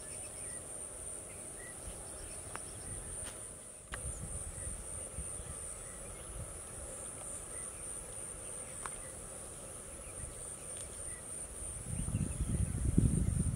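Steady high-pitched drone of insects, crickets or cicadas, with a few faint short chirps. About twelve seconds in, louder low rustling and thuds set in.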